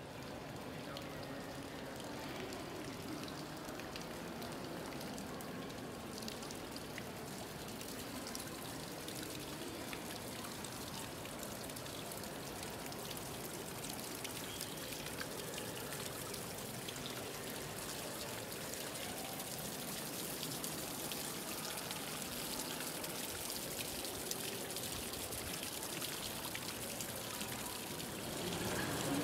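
Fountain water spraying from a bronze sculpture and splashing into its pool, a steady rushing patter.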